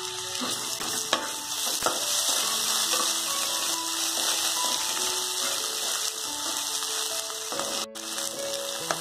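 Chopped onions and green capsicum sizzling as they fry in butter and oil in a nonstick pan, stirred with a slotted spatula that knocks against the pan a few times near the start.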